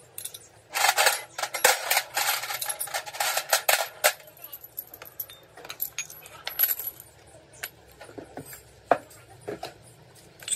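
Metal tools and parts clinking and rattling: a dense clatter of sharp metallic clicks for about three seconds near the start, then scattered single clinks.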